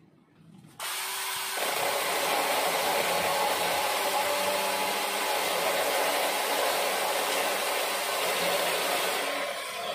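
Cordless battery-powered mini chainsaw starting up about a second in and cutting into a wooden log, its electric motor and chain running steadily under load.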